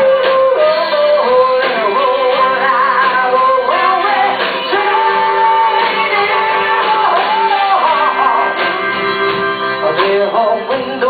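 Live rock band playing a song: guitar, bass and drums with a woman singing a melodic lead line, notes bending and some held for a couple of seconds.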